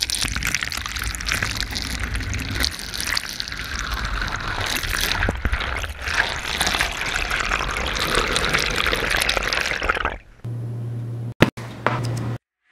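Tap water running into a sink and down the plughole for about ten seconds, then it stops and a steady low hum takes over, broken by two sharp clicks.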